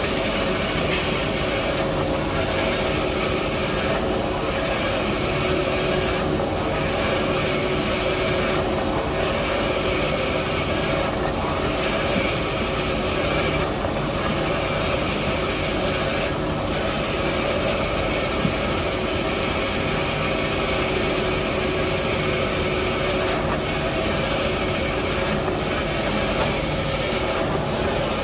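Band saw paper-roll cutting machine running, a steady loud mechanical hum with several fixed tones, its sound briefly changing roughly every two seconds.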